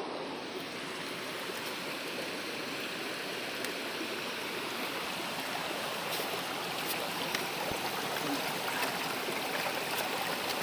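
Small rocky stream flowing and trickling over stones: a steady rush of water, with a few faint clicks.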